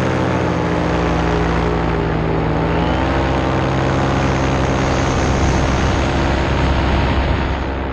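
Paramotor engine and propeller running steadily in flight, heard from the pilot's harness; the engine note dips slightly and then picks back up about two to three seconds in.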